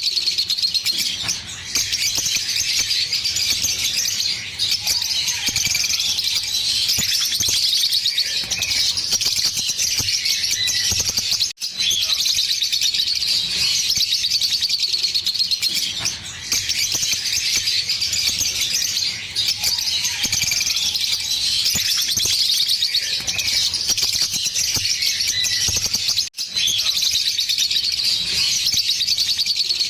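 Green Fischer's lovebirds singing a continuous, rapid, high-pitched chatter of fast repeated notes: the long 'giggle' song. It is broken twice by a sudden, very brief gap.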